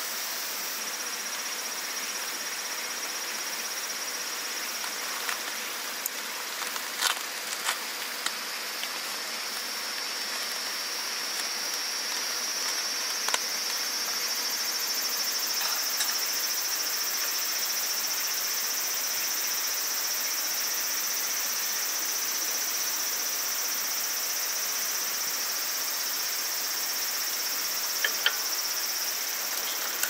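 Insects singing in a continuous high-pitched drone that grows a little louder about a third of the way in, over the steady rush of a river. A few light clicks and knocks of camp gear being handled, mostly in the first third and again near the end.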